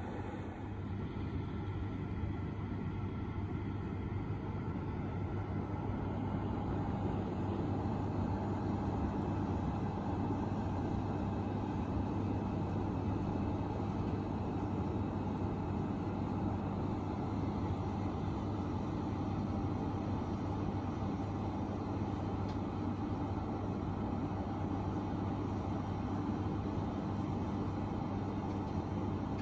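Fan heater running: a steady hum and whir from its blower.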